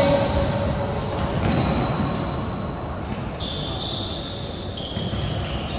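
Basketball bouncing on an indoor court during play, with sneakers squeaking on the floor, echoing in a large hall.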